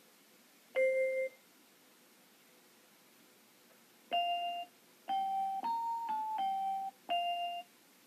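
Piano-like electronic notes from a touch-sensing music flowerpot's speaker, set off as fingers touch the plant's leaves. One note sounds about a second in, then a run of six short notes from about four seconds, rising in pitch and falling back.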